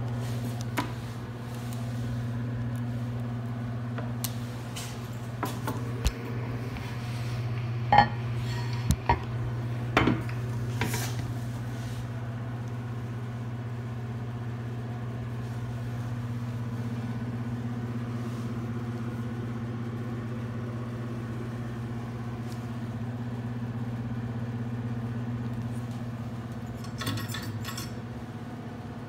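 Porcelain toilet tank lid clinking and knocking as it is handled, several sharp clinks about a third of the way in. A steady low hum runs underneath.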